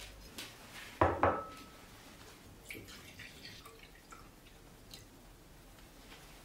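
Two sharp clinks of kitchen dishware about a second in, the second ringing briefly. Then milk is poured from a glass into a ceramic bowl, with faint trickling and dripping.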